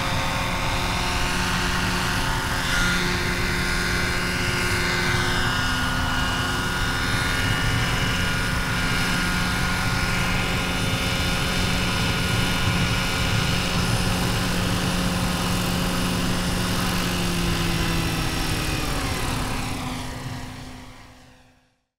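Electric Vario Airwolf scale RC helicopter's motor and rotors whining steadily in flight and on landing. About nineteen seconds in the pitch slides down as the rotors spin down, then the sound fades away.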